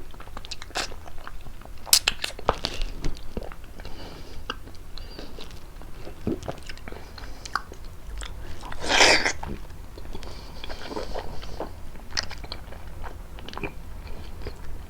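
Close-miked eating of prickly pear fruit: bites and chewing with irregular crunching clicks, and one longer, louder sound about nine seconds in.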